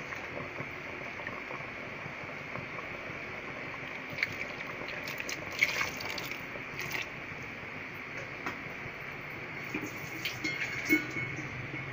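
Water poured from a plastic mug into thick curry in an aluminium pressure cooker, splashing and dripping about midway, with a few sharp clinks and knocks scattered through and near the end, over a steady hiss.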